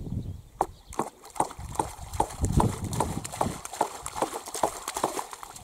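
Steady hammer blows, about two and a half a second, driving a wooden pole into a lake bottom while standing in the water; each knock comes with a splash.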